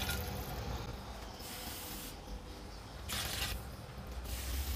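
Water poured from a tipped bowl into a pot of curry, running in a thin trickling stream that comes in a few short spells.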